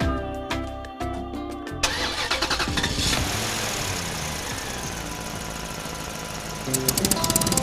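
A few notes of music, then an engine starting up about two seconds in and running steadily. Near the end a fast ticking rhythm and music come back in.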